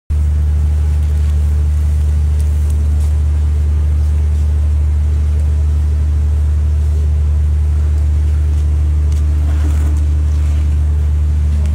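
A loud, steady low hum that starts abruptly at the very beginning and holds unchanged throughout.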